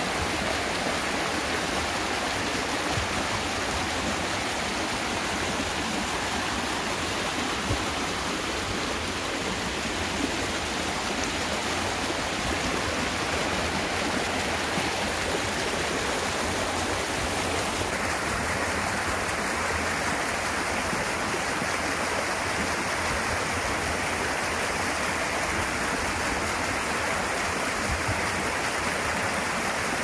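Shallow water rushing and splashing over rocks: a steady, even rush whose tone shifts slightly about eighteen seconds in.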